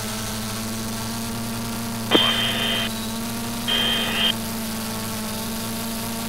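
Steady low hum of a military radio channel between transmissions, broken twice by short bursts of radio noise, about two and about four seconds in.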